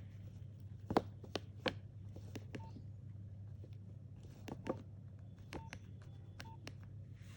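Keys of a Nokia 1650 mobile phone being pressed: about a dozen sharp button clicks spread unevenly, a few of them with a short keypad beep, over a faint low hum.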